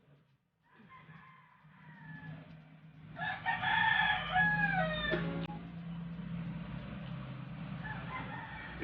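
Rooster crowing: one loud crow about three seconds in, its pitch dropping at the end, with fainter crows before it and near the end, over a steady low hum.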